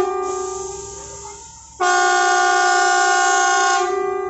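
Horn of a rail track-maintenance machine sounding two blasts: a first one that fades away over about a second and a half, then a steady blast of about two seconds that stops near the end.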